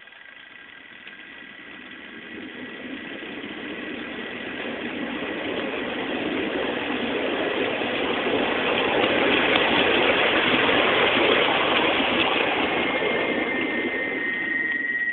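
A 5-inch gauge ride-on loco's 1900 W brushless motor and belt-and-chain drive running along the track: a rough running noise builds steadily over about ten seconds, with a thin, steady high whine on top, then cuts off suddenly at the end.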